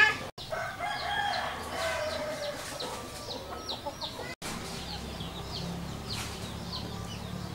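Bird calls: louder pitched calls during the first two seconds, then a run of short, high chirps that fall in pitch.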